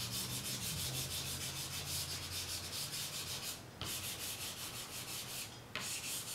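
A stick of charcoal held flat and scrubbed rapidly back and forth across drawing paper in a zigzag, making a fast, even scratchy rasp. It breaks off briefly twice, near the middle and about a second before the end.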